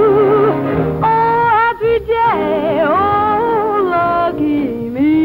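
Vintage dance-band recording: the orchestra plays under a sung melody of long held notes that waver in pitch.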